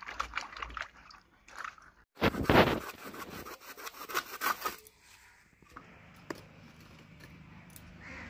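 A hand swishing chalta slices in a steel bowl of water, with light splashes. Then, louder, about two and a half seconds of rough scraping and rustling as a plastic mesh sack is worked against a metal tool, dying away to a few faint ticks.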